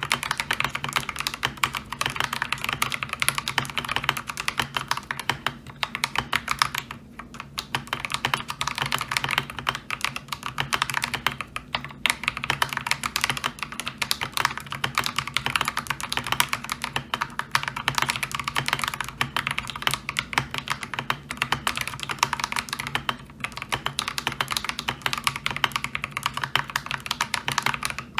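Continuous typing on an Akko 3098B mechanical keyboard fitted with lubed Akko Lavender Purple tactile switches and ASA-profile keycaps: a dense stream of keystroke clacks with a few short pauses.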